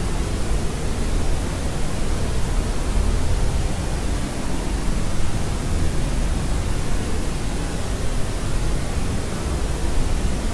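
Steady noise for sleep: an even, unbroken hiss weighted toward the low end, like pink noise, with no changes in level.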